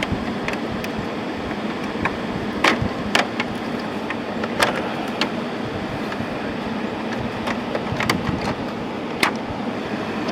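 2017 General Electric 6000 BTU window air conditioner running with its compressor on and blowing cold air: a steady rush of air with a low hum. A few sharp clicks come and go over it, loudest around three and five seconds in.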